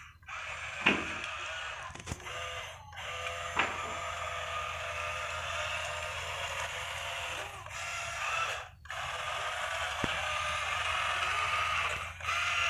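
Remote-control toy excavator's small electric motors and plastic gearboxes whirring as it moves, stopping briefly several times and starting again.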